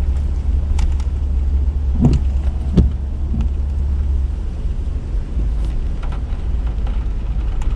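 A vehicle driving slowly, heard from inside: a steady low rumble with a few brief knocks.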